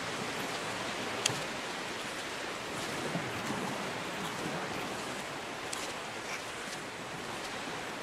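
Gulf of Mexico surf washing onto the beach: a steady rushing hiss, with a few short sharp clicks, the loudest about a second in.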